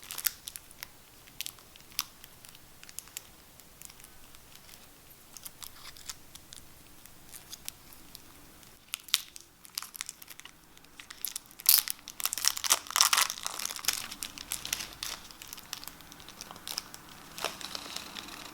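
Cellophane wrapper being torn open and peeled off a playing-card tuck case: sparse crinkles and crackles at first, then a louder, dense burst of crinkling about two-thirds of the way through as the wrap comes away.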